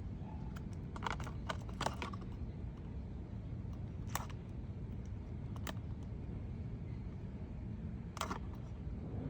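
A few short, sharp clicks and knocks, scattered irregularly, over a steady low rumble.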